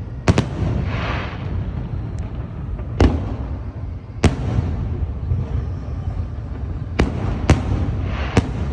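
Aerial firework shells bursting: sharp bangs at irregular intervals, a close pair near the start and about five more, some followed by brief crackling, over a constant low rumble.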